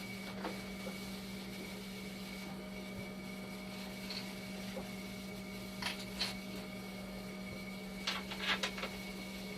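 Dialysis machine running its test cycle: a steady low hum with a faint high-pitched whine, and a few short clicks a little past halfway and again near the end.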